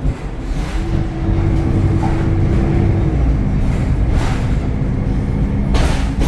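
Onboard running sound of a Temsa Avenue LF city bus with a DAF diesel engine and ZF gearbox: a steady low drone with a whine that drops in pitch about three seconds in. Brief bursts of hiss come around four seconds and again near the end.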